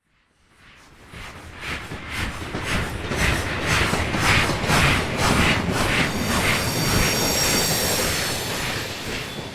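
Steam locomotive passing, its exhaust chuffing at about two beats a second as it swells in from silence and grows loud. From about six seconds in, a high, steady squeal joins over the chuffs.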